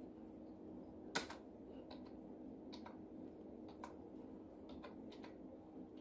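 Computer keyboard keys pressed one at a time, slow, scattered clicks with the sharpest about a second in, over a steady low hum.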